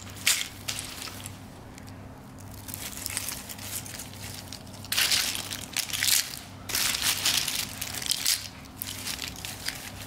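Dry, broken walnut shells crunching and rattling as hands scoop them up into a cloth, in a run of bursts that are loudest a little past halfway.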